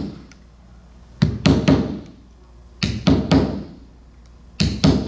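Hammer striking a small wooden wedge to tap spline down into the glued channel around new cane webbing. Three quick bunches of three or four sharp knocks each, spaced by short pauses.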